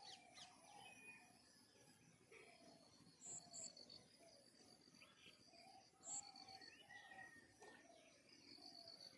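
Faint outdoor birdsong: several small birds giving short high chirps and trills, over a steady background hum of insects.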